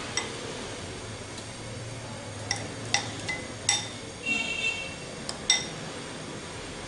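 A metal spoon clinking against a glass bowl while coating a potato ball in beaten egg: several separate light clinks, one ringing briefly a little past the middle.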